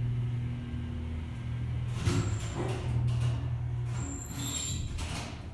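Vintage Westinghouse relay-controlled freight elevator humming steadily as the car levels at a floor and then re-levels downward. Sharp clunks from the machinery come about two seconds in and again near the end.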